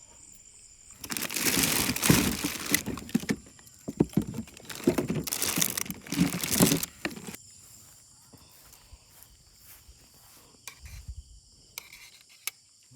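Crinkling and rustling of something being handled, in two loud stretches of about two seconds each, with a steady high chirring of crickets underneath.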